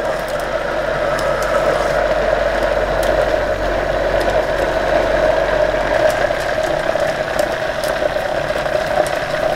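Countertop blender motor running steadily, churning a creamy batter in its open jar, with a few light clicks from a spoon against the jar.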